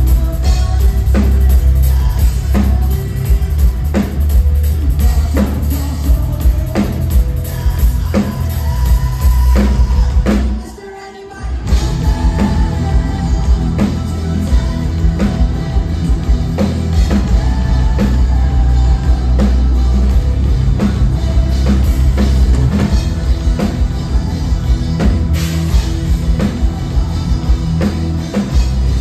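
Live metalcore band playing loud, with drums, guitars and vocals, heard from within the crowd. About ten seconds in the band stops for about a second, then crashes back in.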